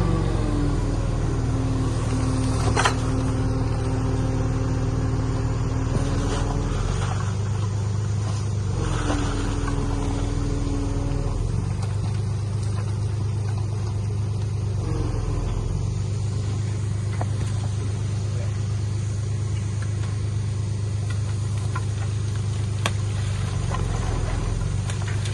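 Diesel engine of heavy earthmoving machinery running steadily, with a whine that comes and goes and a sharp click about three seconds in.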